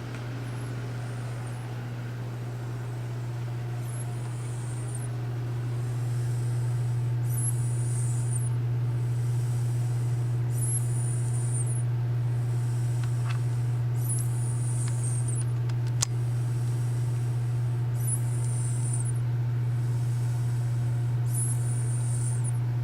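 A sleeping man snoring, one breath sound about every three and a half seconds, over a steady low hum. A single sharp click about two-thirds of the way through.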